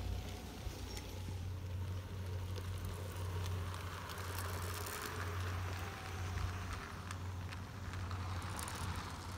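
16 mm scale garden-railway train, a small Corpet Louvet locomotive hauling wagons, running past on the track: the wheels roll and click over the rails, the hiss of rolling swelling in the middle as it passes close and fading near the end, over a steady low hum.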